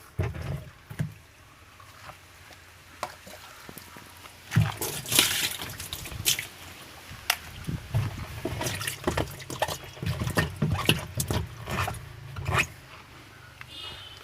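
Water splashing and dripping in a top-loading washing machine's wash tub as it is washed out, with irregular knocks and scrapes of handling.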